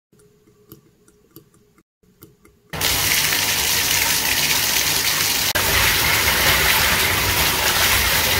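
Cartoon water sound effect: a few faint drips, then from about three seconds in a loud, steady gush of pouring water.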